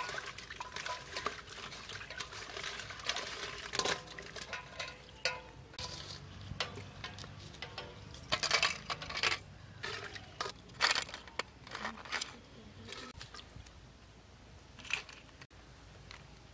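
Cleaned crab pieces being rinsed by hand in water in an aluminium basin: sloshing water, with shells clicking and knocking against the metal in irregular bursts that thin out in the last few seconds.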